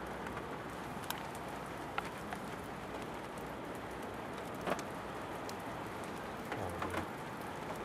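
Steady rain falling: an even hiss with a few sharp ticks of single drops landing close by, the loudest about two-thirds of the way through.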